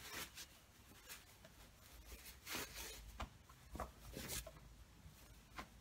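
Faint rustling of a fabric cushion cover being handled and turned right side out by hand: a string of short, soft brushing sounds.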